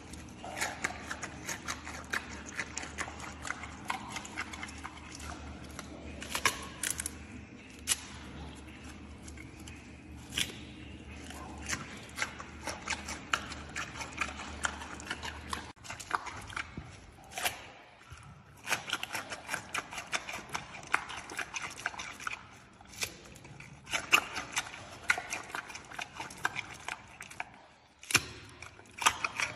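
Giant panda chewing raw pumpkin: a continuous run of irregular crunching and smacking bites, with a couple of brief pauses.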